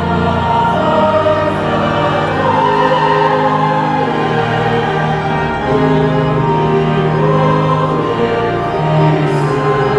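Large choir singing a hymn in held chords with instrumental accompaniment.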